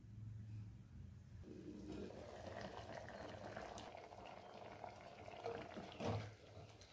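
Bottle gourd curry simmering in a terracotta clay pot, a soft, steady bubbling. About six seconds in a ladle is stirred through the pot with a brief louder scrape.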